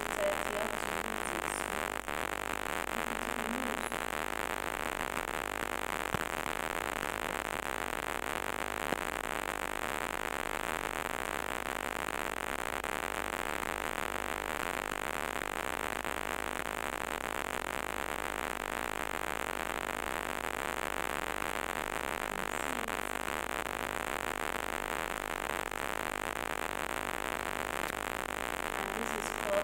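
Steady hiss of background noise, with a few faint clicks.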